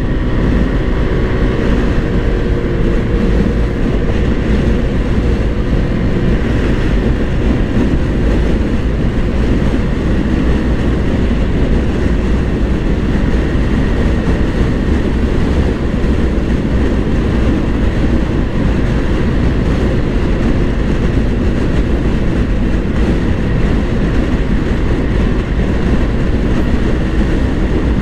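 Heavy wind noise rushing over the microphone, with the Honda PCX 160 scooter's single-cylinder engine and belt drive droning underneath as it accelerates from about 20 to over 90 km/h. The noise stays steady and loud throughout.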